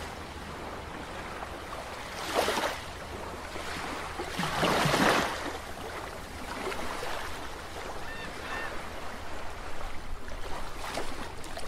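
Underwater ambience sound effect: a steady watery rush with two swelling whooshes, the louder one about five seconds in, and two faint short blips a little later.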